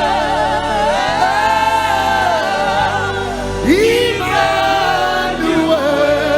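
Live gospel worship music: singing with long, wavering held notes over a steady instrumental accompaniment.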